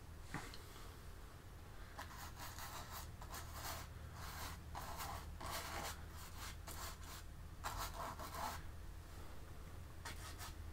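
Paintbrush loaded with acrylic paint brushed across a stretched canvas: a run of faint, short, scratchy strokes in quick succession, starting about two seconds in.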